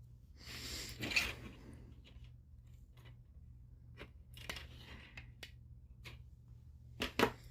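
Handling noises of 3D-printed plastic parts and electrical tape: a rasping, tearing-like noise about half a second in that lasts about a second, then scattered light plastic clicks, with two sharper clicks near the end.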